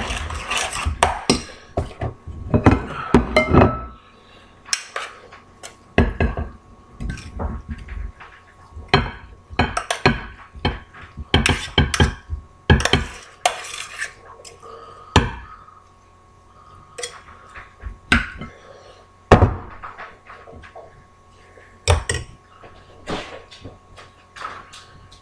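A spoon stirring and scraping pasta around a stainless steel pot, dense for the first few seconds. It is followed by scattered knocks and clinks of the spoon against the pot as the pasta is scraped out onto a plate.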